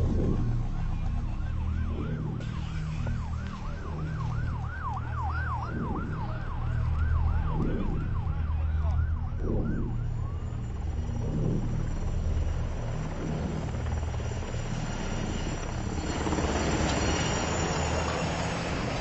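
Emergency vehicle siren wailing fast up and down, about twice a second, for some eight seconds over a heavy low engine rumble. It fades out about halfway through, and a broad rushing noise builds near the end.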